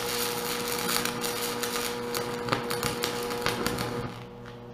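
Aluminum stick-welding arc from a Hobart 4043 aluminum electrode on DC electrode positive, crackling steadily, then breaking off about four seconds in. A steady low hum runs underneath and continues after the arc stops.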